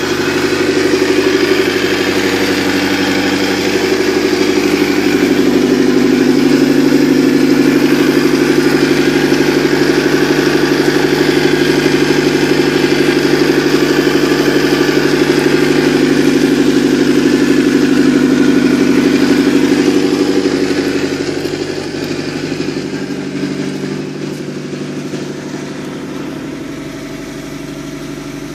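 OMC 3.0 four-cylinder sterndrive engine running steadily at idle out of the water, cooled by a garden hose on the outdrive. The sound eases somewhat quieter after about twenty seconds.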